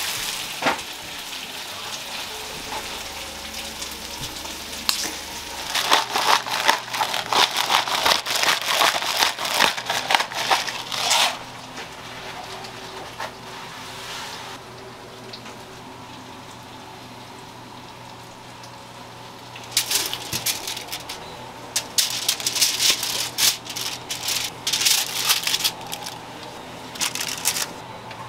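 Kitchen handling noise while fish is plated and fillets are laid out on foil-lined trays: bursts of dense crackling and clatter about six to eleven seconds in and again from about twenty seconds in, with a quieter stretch between.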